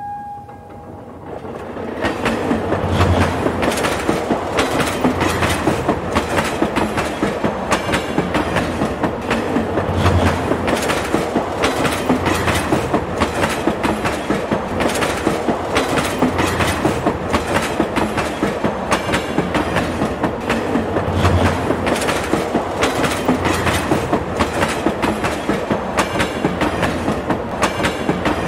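Train running on rail track: a steady, rapid rhythmic clickety-clack of wheels over rail joints. It builds up over the first two seconds, then runs on evenly, with heavier low thumps every few seconds.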